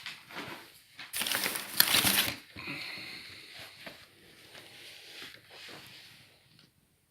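Packaging crinkling and rustling as items are handled out of a delivery box, loudest in a burst about a second in, then softer rustling that fades out near the end.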